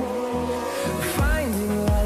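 Background pop music: sustained synth notes over a beat, with deep bass notes sliding down about every three-quarters of a second.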